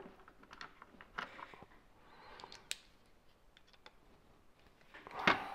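Faint, sparse light clicks and taps of a folding knife and small screwdriver bits being handled, with a short rustle near the end.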